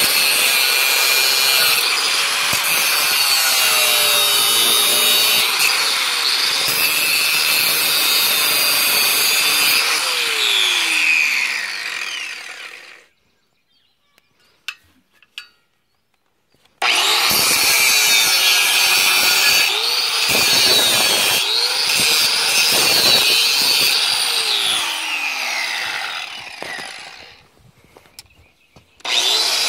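DeWalt angle grinder with a cut-off wheel cutting through a steel exhaust pipe: a loud, rough grinding whine whose pitch shifts as the wheel is loaded. It spins down and stops about halfway through, starts cutting again a few seconds later, spins down once more near the end and starts up again just at the end.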